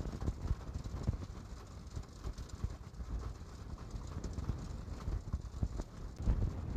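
Rain falling, heard as many irregular drops knocking on a surface over a low wash. A cluster of louder low thuds comes near the end.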